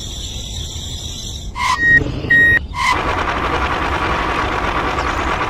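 Two short electronic beeps like a vehicle's reversing alarm about two seconds in, followed by a steady mechanical hum.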